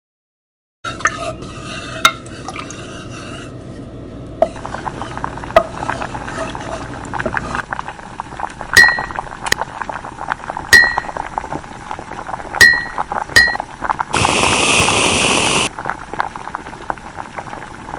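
Kitchen sound effects for making hot chocolate: liquid pouring and stirring with scattered clicks, then a spoon clinking five times against a cup. Near the end comes a loud, even hiss lasting about a second and a half.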